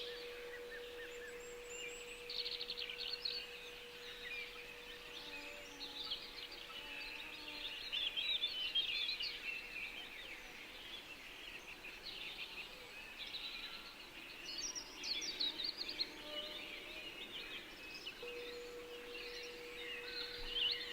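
Several songbirds chirping and trilling over a steady hiss of forest ambience. Beneath them a single steady pure tone, the added 'throat center' frequency, holds, fades out about halfway through, and comes back near the end.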